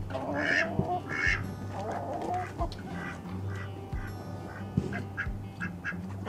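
Chickens clucking in their run, a few short separate calls, the clearest in the first two seconds.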